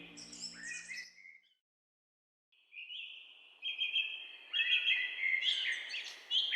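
Wild birds calling: quick high chirps and short trills. They stop for about a second and a half of dead silence, then resume in a busy run of chirping.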